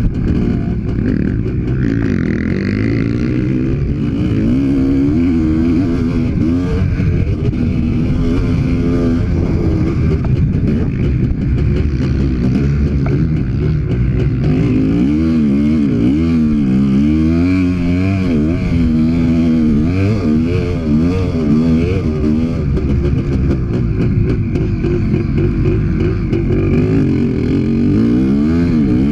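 Honda CR500's two-stroke single-cylinder engine under riding load, its revs climbing and dropping over and over as the rider accelerates, shifts and backs off.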